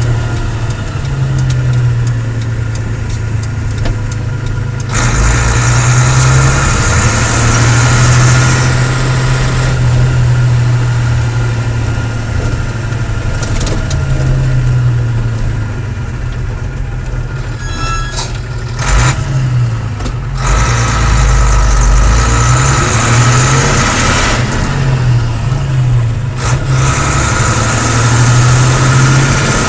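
A 10-ton diesel lorry's engine running, idling and being revved, its low drone rising and falling in pitch, with several quick pitch swings in the later part.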